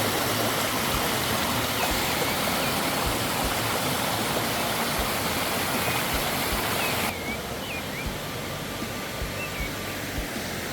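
Waterfall: a steady rush of falling water that suddenly becomes quieter and duller about seven seconds in. A few short, high chirps sound over it.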